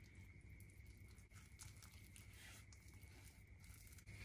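Faint soft scraping and squishing of a silicone spatula stirring flour into a wet dough mixture in a glass bowl, over a steady faint hum.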